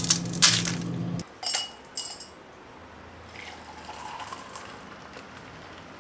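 A steady motor hum cuts off about a second in, with glass or utensils clinking near the start and twice more just after. Liquid is then poured as a protein shake is made.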